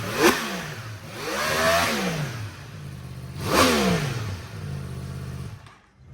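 2022 Yamaha YZF-R1's 998cc crossplane inline-four, breathing through an Akrapovič Evolution full titanium exhaust, blipped three times from idle: a short rev, a longer rev around two seconds in, and a sharp high rev a little later, each falling back to a steady idle.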